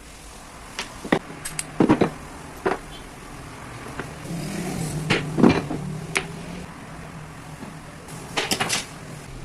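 Scattered clicks and knocks of hand work on a mini angle grinder and its parts, several coming in quick clusters, over a faint low hum.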